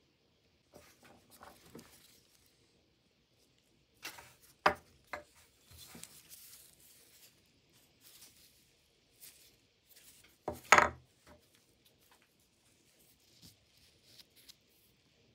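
Scattered taps, clicks and knocks of tools and parts being handled at a workbench, with two louder knocks, one about a third of the way in and one about two-thirds in.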